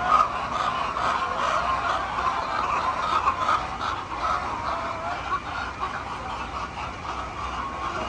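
A flock of hens in a coop clucking and calling, many voices overlapping at a steady level.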